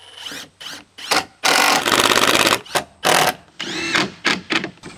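Cordless drill running in several short bursts and one longer run of about a second with a rapid rattle, drilling pilot holes and driving screws into plywood.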